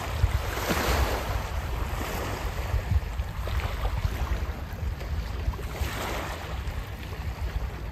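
Small waves washing in on a pebble beach, swelling and falling back a few times, with wind buffeting the microphone as a steady low rumble.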